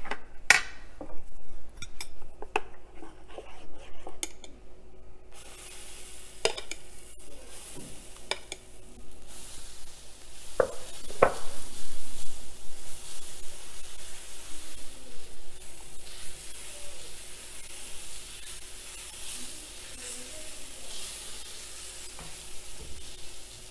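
A few clinks of a spatula against a plate, then dosa batter sizzling on a hot non-stick pan while a metal ladle scrapes over it, spreading it out in circles, with a couple of sharp knocks about eleven seconds in.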